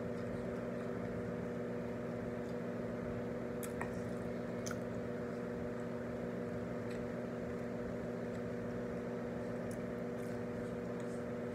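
A steady low electrical hum with a few faint, brief clicks.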